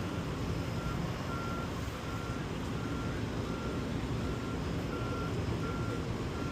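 York commercial HVAC unit running with a steady low rumble after its compressor has started, while a single high electronic beep repeats about every 0.7 s, like a vehicle's reversing alarm.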